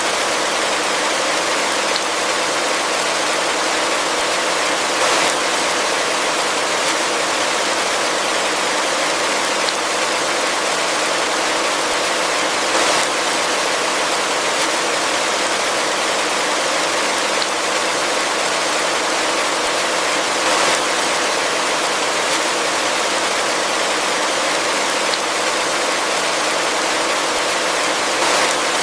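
Heavy rain falling steadily, a dense even hiss that swells briefly a few times.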